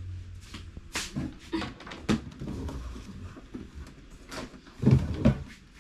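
Light knocks and clatters of kitchen containers being handled while spices are fetched, then a short, loud vocal sound near the end.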